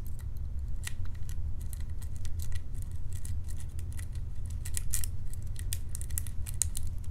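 Lock pick raking and rocking against the pins of a pin-tumbler lock core under light tension-wrench tension, giving irregular small metallic clicks and scratches, denser in places, over a steady low hum.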